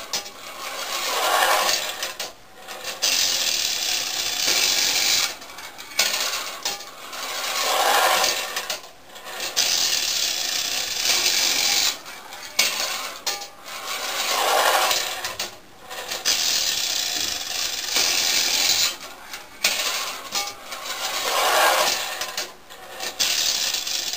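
Clockwork tinplate toy tram running along its sheet-metal mountain-railway track: a steady rasping rattle of the wound-up motor and tin wheels on the tin rails. It swells and fades in repeating cycles, with short breaks every three seconds or so.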